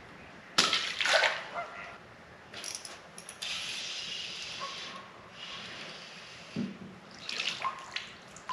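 Water splashing and sloshing beside a wooden dock. There is a sharp splash about half a second in, then a steadier wash of water, a dull knock a little past six seconds, and another splash near the end.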